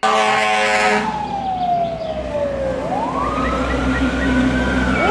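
Fire truck on emergency response: a horn blast for about the first second, then the siren wails, falling in pitch, climbing back up about three seconds in, and slowly falling again, over a low rumble of engine and road noise.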